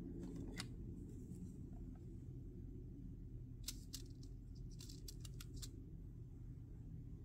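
Light clicks and ticks of metal tweezers picking through small gold nuggets in a plastic weigh tray: a couple near the start, then a quick cluster about halfway through, over a steady low hum.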